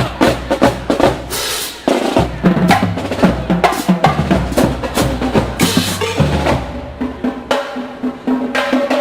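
College marching band drumline playing a fast cadence: rapid snare-drum strokes over deep bass-drum hits. A few held pitched notes join in during the last couple of seconds.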